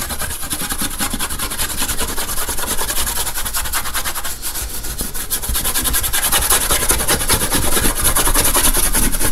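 Small brush scrubbing quickly back and forth over gold leaf laid on a tray, sweeping off the loose leaf that has not stuck to the gilding size. The dense run of strokes grows a little louder toward the end.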